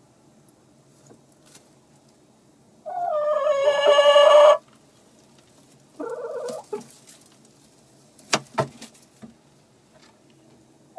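Domestic hen calling: one long, loud drawn-out call about three seconds in, then a shorter call around six seconds. A few sharp knocks follow a little later.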